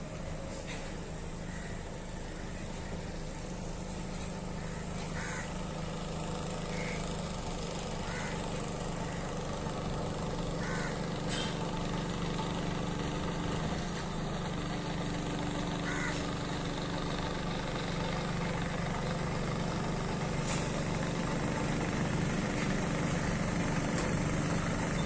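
Houseboat engine running steadily with a low hum, growing slightly louder toward the end, while birds give short calls every few seconds.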